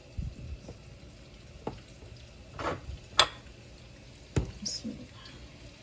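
Chopped tomato pieces dropped by hand and then tipped from a bowl into a plastic blender jar: about six soft knocks and thuds, with a sharper clink about three seconds in.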